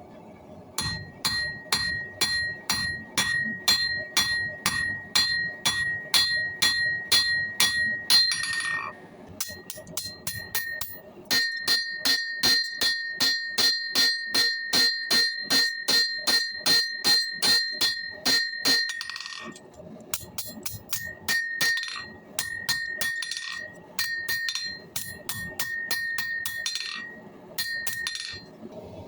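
Blacksmith's hammer forging steel from an old suspension spring on an anvil: steady blows about two to three a second in runs with short pauses, each leaving a bell-like anvil ring.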